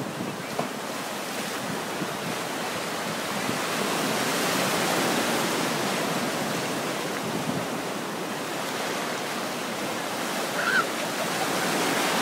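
Shallow ocean surf washing and breaking around people wading, a steady rush of water that swells about four seconds in. A short high-pitched call comes near the end.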